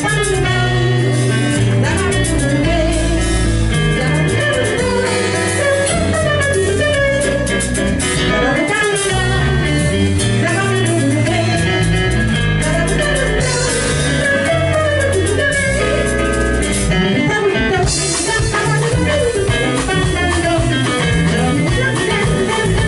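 Live band playing with a woman singing lead over guitars, keyboard and a drum kit.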